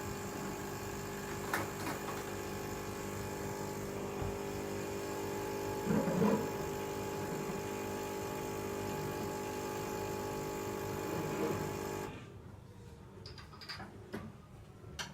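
Tchibo Cafissimo capsule coffee machine's pump running with a steady hum as it brews a cup, stopping suddenly about twelve seconds in when the brew finishes. A few light knocks come during and after it.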